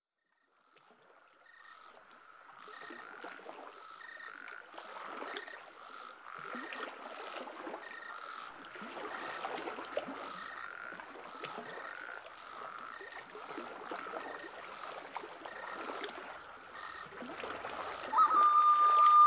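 Frogs calling in a chorus, a call about every second and a bit, fading in and then holding steady. Near the end a much louder, steady, high-pitched call cuts in.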